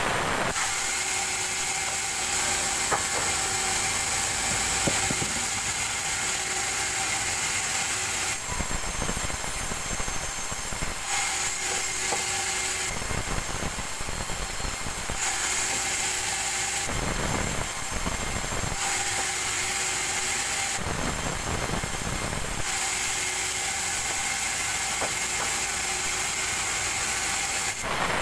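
Sawmill band saw running while a wet petai log is fed through its blade. The sound switches every few seconds between a steady high whine and a rougher, deeper noise.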